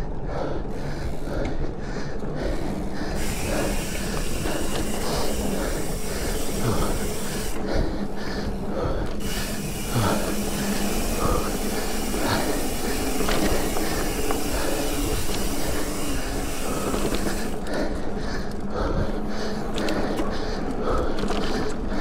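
Steady rushing wind and road noise on a camera carried by a rider moving at racing speed.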